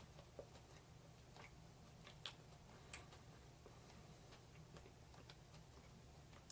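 Near silence: room tone with a low hum and a few faint, irregular clicks.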